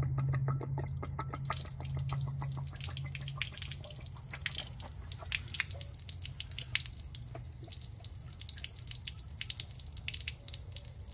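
Water spattering and dripping from an RV water heater's opened pressure relief valve as the tank's pressure is let off, in many irregular drips, with a low hum over the first few seconds that fades away.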